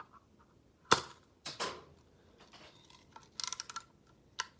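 Hard plastic knocks from a computer mouse being struck and knocked about: one loud sharp knock about a second in, a second knock half a second later, then a quick rattle of clicks and one more click near the end.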